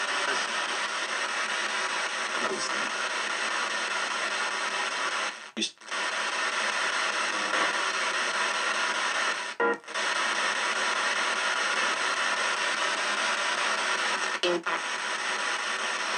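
P-SB7 spirit box (a ghost box radio) sweeping the band in reverse through stereo speakers: a steady wash of radio static with snatches of broadcast voices and music. It cuts out briefly three times.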